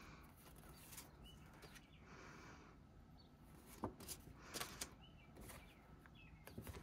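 Near silence with faint handling of glossy photocards: soft paper rustles and a few light taps and clicks about four seconds in.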